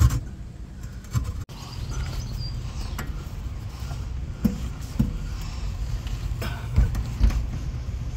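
Scattered sharp knocks and clunks, about half a dozen, over a steady low rumble.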